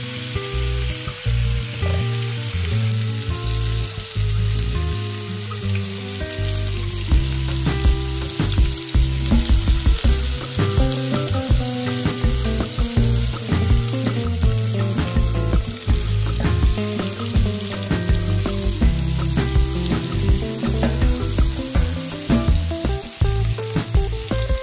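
Seasoned oxtail pieces searing in oil in a nonstick frying pan: steady sizzling with frequent small pops and spatters. Background music plays underneath.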